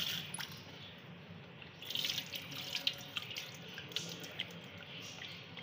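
Tap water running into a glass dish of liver pieces in a sink, with splashing and small knocks as hands rub the pieces clean in the water; the splashing gets louder about two seconds in.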